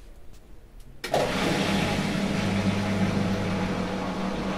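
Candy front-loading washing machine starting its cycle about a second in: a sudden steady rush of water filling the drum over a low, even hum.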